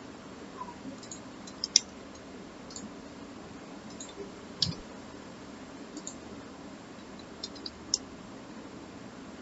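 Scattered sharp clicks of a computer mouse and keyboard, a dozen or so at uneven intervals, over a faint steady background hum.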